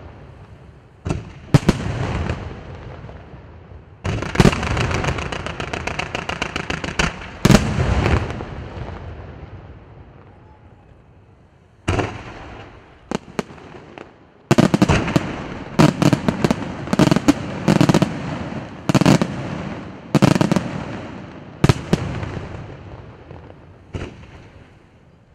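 Aerial firework shells bursting: sharp bangs, then a run of rapid crackling reports from about four seconds in. After a lull near the middle comes a dense series of loud bangs that thins out near the end.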